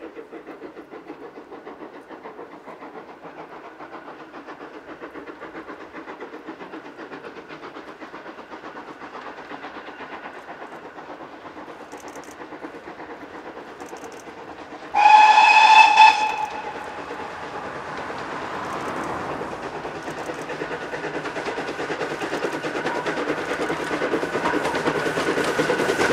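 GWR 14xx 0-4-2 tank locomotive No. 1450 working a train toward the listener, its rapid steam exhaust beats growing steadily louder as it nears. About fifteen seconds in, it gives one loud blast on its steam whistle, lasting about a second.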